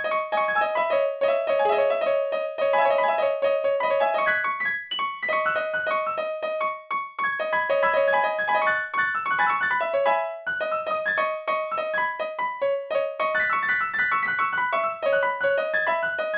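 Piano or electric keyboard music: quick repeated notes in a steady flowing pattern, with no voice.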